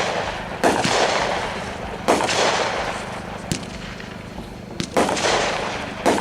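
Consumer repeater firework cake (Brothers 'Forever Diamonds', 35 shots) firing shot after shot, about one every second and a half. Each shot is a sharp bang followed by a noisy tail of about a second that fades away.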